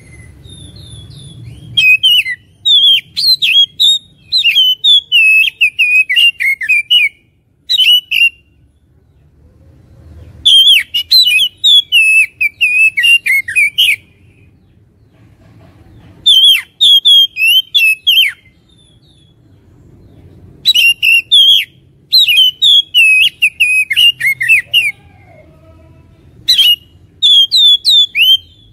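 Oriental magpie-robin singing a fast, varied song of sliding whistles and scratchy notes. It comes in loud bouts of a few seconds, about five of them, separated by short pauses.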